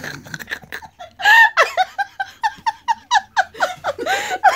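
Laughter: a long run of quick, high-pitched 'ha' bursts, about five a second, starting about a second in.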